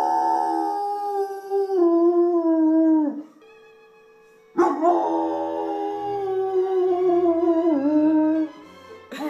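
German Shepherd howling: two long howls, the first falling in pitch and breaking off about three seconds in, the second starting about a second and a half later and sagging away shortly before the end.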